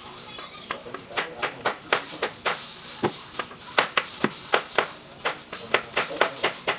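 Kitchen knife chopping garlic cloves on a plastic cutting board: a run of sharp knocks of the blade on the board, about three to four a second and somewhat uneven, starting about a second in.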